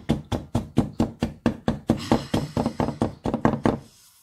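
A wooden spoon knocking against the side of a mixing bowl as cookie dough is beaten by hand, a fast, regular beat of about five knocks a second that stops suddenly near the end.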